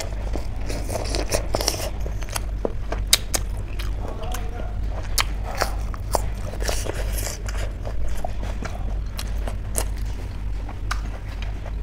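Close-up chewing and biting of crunchy food, with many sharp, irregular crunches, over a steady low hum.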